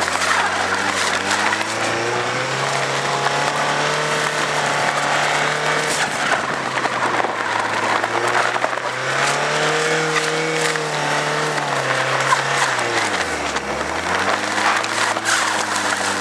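Ford Escort van's diesel engine revving up and down as the van is thrown around on snow, its pitch rising and falling several times, dropping sharply about 13 seconds in and then climbing again, over a steady hiss of tyre noise.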